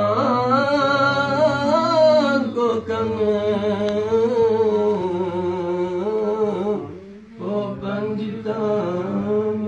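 A man's voice chanting a Balti qasida, a devotional poem, in long held notes that waver and glide, over a steady low drone. The voice breaks off briefly about seven seconds in, then resumes.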